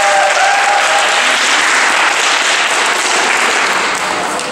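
Audience clapping and cheering. The cheering voices die away after about a second while the clapping continues, easing off near the end.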